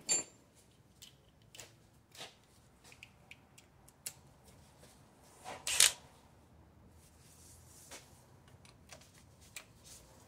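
Scattered light clicks and clinks of hand tools as a 1/2-inch socket is tried on a bolt, with a louder clatter just after the start and another about six seconds in.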